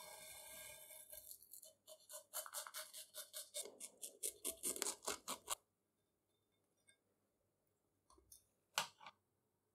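Masking tape on a steel press table being trimmed with a small blade: a brief scratchy rub, then a run of quick scratchy strokes, about four a second, that stops a little past halfway, followed by a couple of faint clicks near the end.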